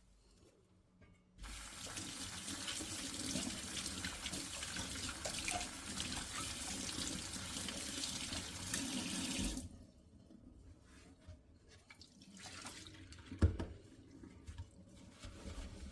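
A tap runs into a sink: it is turned on about a second and a half in and shut off about eight seconds later. A few light knocks and handling clicks follow, with one sharper knock near the end.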